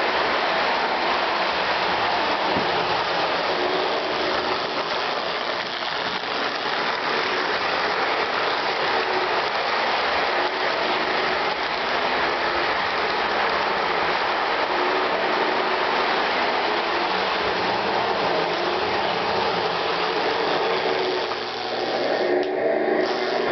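Lionel O-gauge train, a 1948 2-6-2 Prairie 2026 steam locomotive hauling passenger cars, running on tinplate track close by. It makes a steady mechanical clatter of motor gears and wheels.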